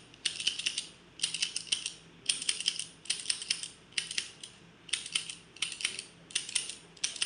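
A spring-loaded three-needle hijama lancing pen clicking as it is fired repeatedly against the skin. It gives a quick cluster of sharp clicks about once a second, each firing puncturing the skin for wet cupping.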